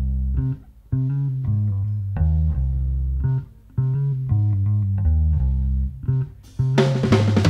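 Live band music: a solo bass guitar plays a riff of low plucked notes, breaking off briefly twice. Near the end, drums and cymbals crash in.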